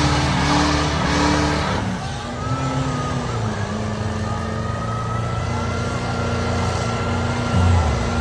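Diesel pulling truck's engine running hard under load on a truck-pull run. It is loudest and roughest for about the first two seconds, then settles into a steadier drone with a thin high whine over it.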